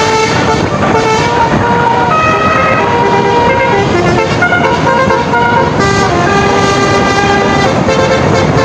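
Bus horns sounding a string of held tones that change pitch every half second to a second, a melodic run of horn notes over a steady background of vehicle noise.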